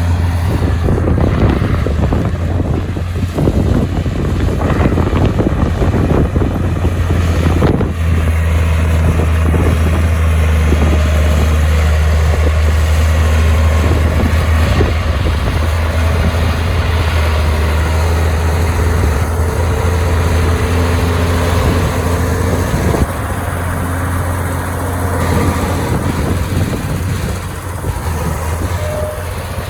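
Heavy diesel engine of earthmoving machinery running steadily with a deep hum; the level dips slightly about 23 seconds in.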